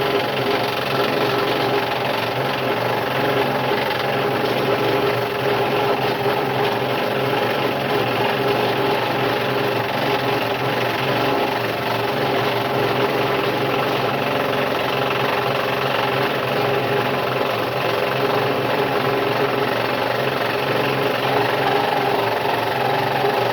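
Scroll saw running steadily, its blade stroking fast up and down as it cuts through a wooden puzzle blank.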